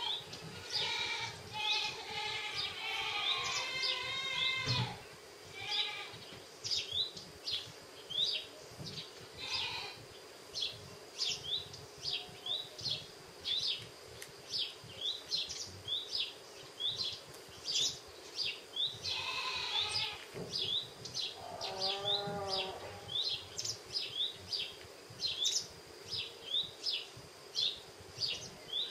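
Outdoor animal sounds: a bird's short rising chirps repeat one to two times a second, and a few wavering, bleat-like calls come near the start and twice about two-thirds of the way through.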